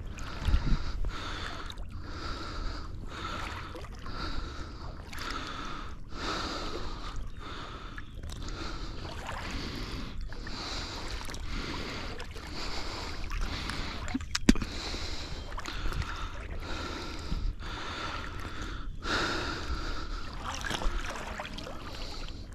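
Heavy, rhythmic breathing close to the microphone, about one breath a second, with a faint sloshing of water.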